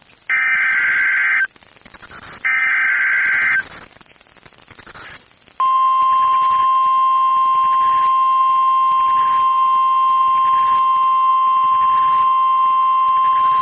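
NOAA Weather Radio Emergency Alert System activation. Two harsh, buzzing bursts of SAME header data come about two seconds apart, each about a second long. About two seconds after the second burst, the steady single-pitch warning alarm tone starts and holds, signalling that a Tornado Watch is being broadcast.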